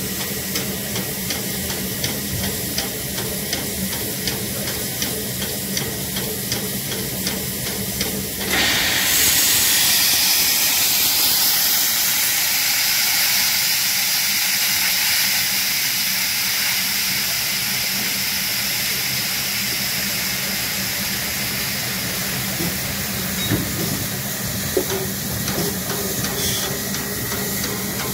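Standing DB class 23 steam locomotive hissing steadily with a quick regular ticking behind it. About eight seconds in, a louder rush of steam starts suddenly from low at the front cylinders and slowly eases off.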